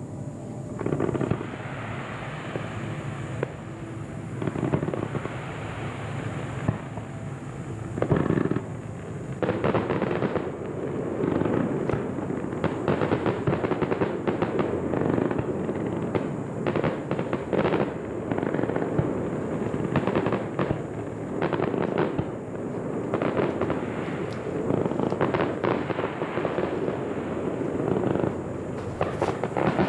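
Aerial fireworks display: shell bursts going off one after another amid crackling. The first several seconds are sparser, with a sharp bang about eight seconds in, then a dense rapid barrage of bursts from about ten seconds in.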